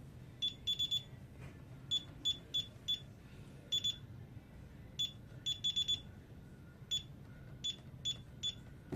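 DSC alarm keypad beeping as keys are pressed: short high beeps at uneven intervals, some single and some in quick runs of two to four, as programming section numbers and codes are keyed in.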